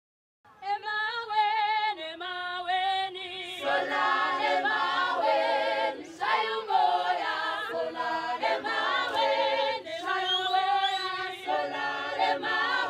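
A mixed group of Zulu women and men singing together a cappella, starting about half a second in.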